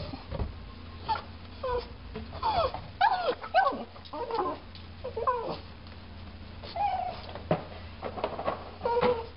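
Pug whining in short, high, wavering cries that slide up and down in pitch, repeated many times.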